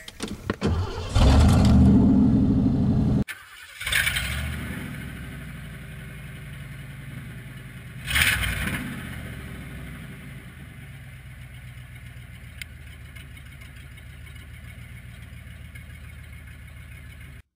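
Ford F-150 gasoline engine cranking, catching and being revved hard for a couple of seconds. After a cut it runs on steadily, with brief revs about four and eight seconds in before settling.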